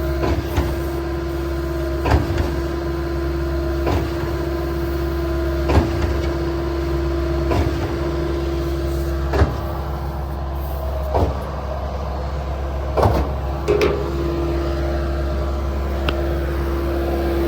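Skid-steer-powered Mud Demon concrete line pump running steadily, with an engine drone and a steady whine under a sharp knock about every two seconds as the pump strokes concrete through the hose.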